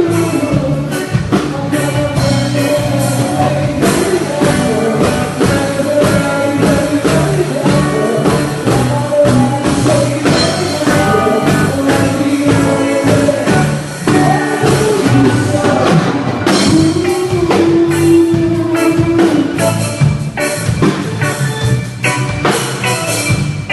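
Band music with a singer, drum kit and guitar playing steadily.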